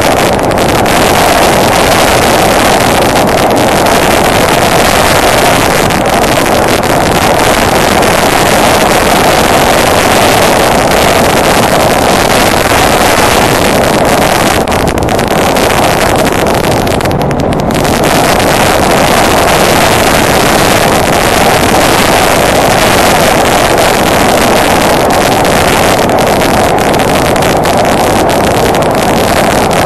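Onboard sound of a Honda Deauville NT650V motorcycle riding at steady speed: a loud, constant rush of wind over the microphone mixed with engine and road noise.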